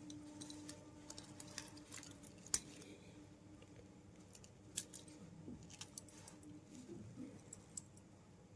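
Light clicks and taps from a wristwatch and its packaging being handled, scattered irregularly, the sharpest about two and a half seconds in, over a faint steady hum.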